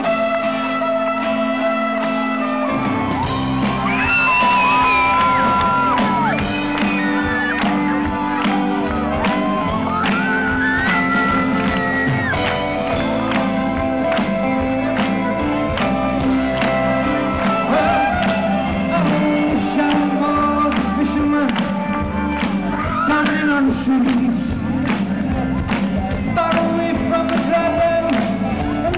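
Live Celtic rock band playing, with fiddles, guitars, drums and keyboard, and singing over it. Drums and bass come in about two and a half seconds in, and the crowd shouts along.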